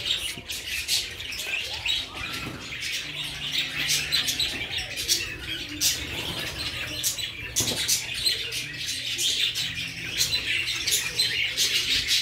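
Budgerigars and cockatiels chattering, a dense stream of overlapping short high chirps and squawks.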